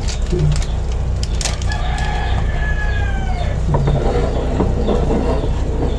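A rooster crowing once: a single long call about a second and a half in, lasting under two seconds, its pitch sinking at the end. Near the end come light knocks and scrapes of a wooden spatula stirring in a metal frying pan.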